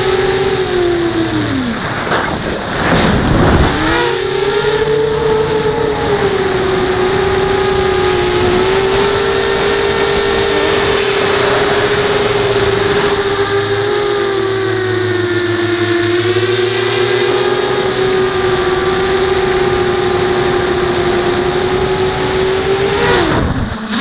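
Brushless motors and 5-inch propellers of an FPV quadcopter, recorded by the camera on board, giving a loud, steady whine in flight. About two seconds in the pitch drops sharply and climbs back as the motors slow and spin up again, and it dips once more near the end.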